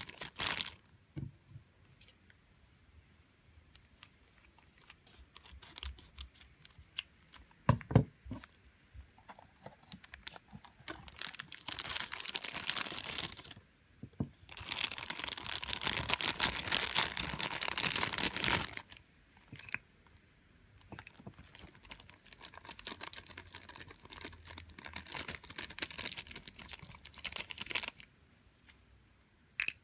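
Clear plastic bag crinkling and rustling as it is handled and pulled away from a small plastic figure, in bursts, the longest lasting several seconds. A single thump about eight seconds in is the loudest sound.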